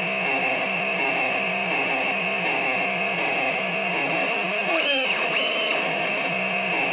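DIY modular synthesizer (the Javanese Modular) droning: a steady high whistling tone over a repeating low pulsing buzz and a noisy texture. About two-thirds of the way through, pitches glide down and then up as a knob is turned.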